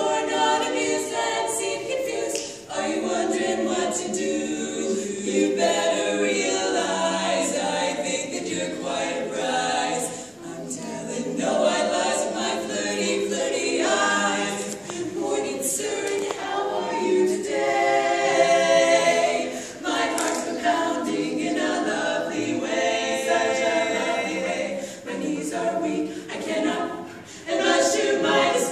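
Female vocal quartet singing a cappella, with short breaks between phrases.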